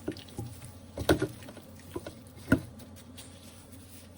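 Raw chicken pieces being rubbed and turned by hand with seasoning: a few short slaps, the loudest about a second in and again about two and a half seconds in.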